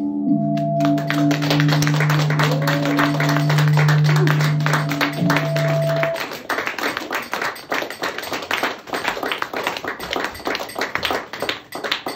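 Audience applauding over a sustained electronic drone of several steady held tones. The drone cuts off about six seconds in, and the clapping carries on alone.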